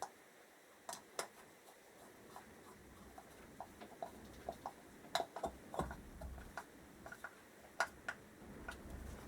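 Small metal clicks and taps, irregular and scattered, from a screwdriver and screw as a screw is fitted to hold the generator stator in its cover.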